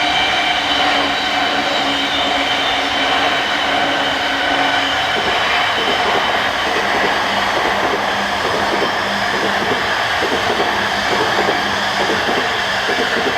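Train passing close by over the rails, its wheels clattering more densely from about five seconds in.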